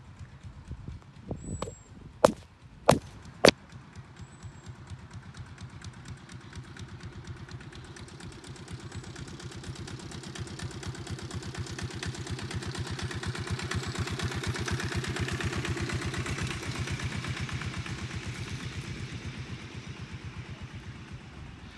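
Miniature railway locomotive hauling a passenger train past, its fast, even engine beat growing louder as it approaches and fading as it pulls away. Three sharp clicks come a couple of seconds in.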